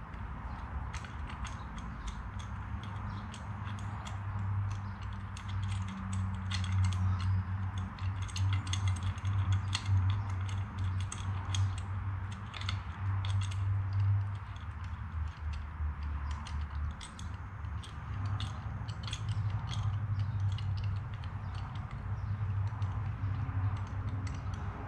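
Irregular metallic clicks and clinks of a highway-peg bracket and its bolts being worked into place on a motorcycle frame, over a low hum that swells and fades.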